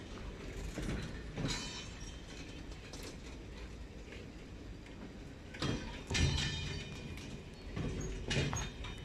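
Loaded flat wagons of a freight train rolling slowly over the rails. There is a steady rumble, with irregular metallic clanks and short ringing squeals from wheels and couplings, loudest about a second and a half in, around six seconds, and again around eight seconds.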